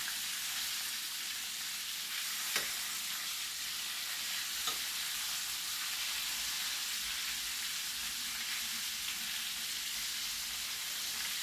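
Flour-coated chicken pieces sizzling steadily in hot frying oil, with two sharp pops about two and a half and four and a half seconds in. The chicken is near the end of frying, almost done.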